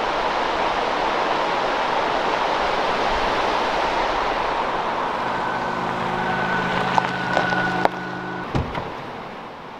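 Steady rushing of a rocky creek. About halfway through, the low even hum of an idling car engine joins in, with a few sharp clicks near the end, and the rushing cuts off shortly before the end.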